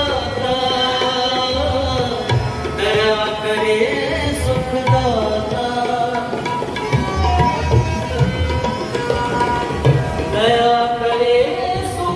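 Devotional Indian music: tabla drum strokes keeping a steady beat under a sustained, gliding melody.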